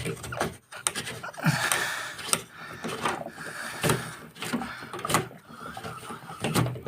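Scattered clicks and knocks of hands working the plastic cap and emergency drain hose at the bottom of a front-loading washing machine.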